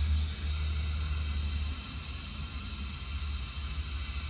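Water escaping from a leaking mains supply pipe, heard as a steady hiss over a low rumble that eases about two seconds in.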